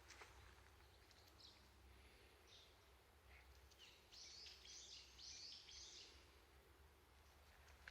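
Faint bird calls: scattered chirps, with a quick run of higher notes about four to six seconds in, over a low steady background rumble.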